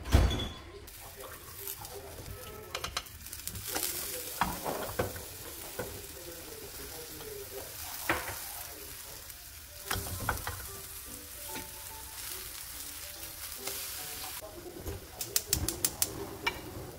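Banana pancakes sizzling in oil in a nonstick pancake pan, with a silicone spatula knocking and scraping against the pan as they are flipped. There are a few sharp knocks along the way and several quick clicks near the end.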